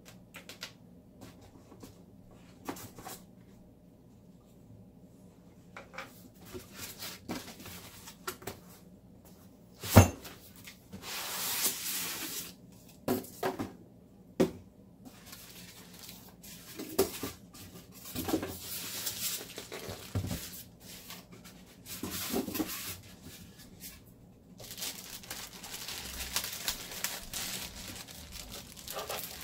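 Unboxing a speaker: cardboard box and foam packing knocked and handled, with one loud knock about ten seconds in, then the plastic bag around the speaker crinkling and rustling in several stretches.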